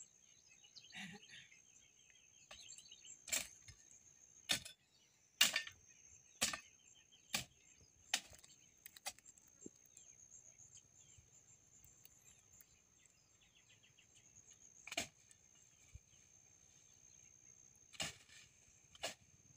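Sharp, separate strikes of a hand tool chopping at weeds and soil, about a dozen, spread unevenly with a long gap in the middle. Under them runs a steady high insect buzz, with faint chirping now and then.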